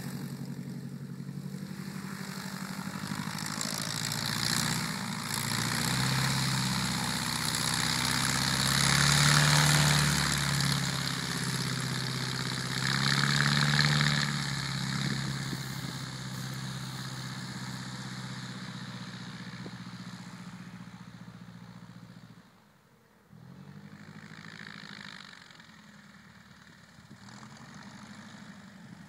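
Glasair Sportsman 2+2 light aircraft's piston engine and propeller running as the plane taxis on grass, loudest about ten and fourteen seconds in, then fading as it moves away. A brief sharp drop comes near the end.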